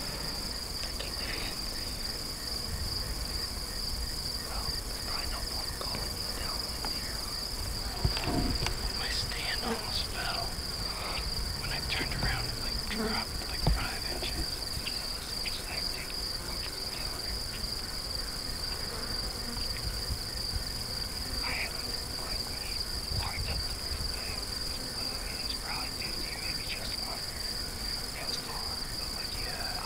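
Crickets chirring in a steady, unbroken high-pitched chorus. A few faint rustles and taps come over it, a little louder about eight seconds in and again near fourteen seconds.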